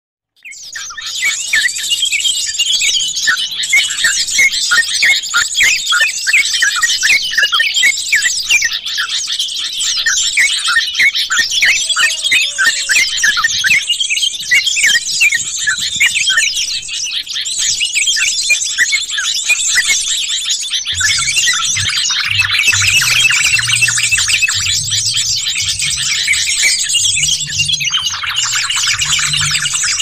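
A dense, busy chorus of overlapping bulbul calls and chatter, yellow-vented bulbuls (trucukan) and jogjog, mixed as a bird-trapping lure track. A low pulsing thrum joins about 21 seconds in.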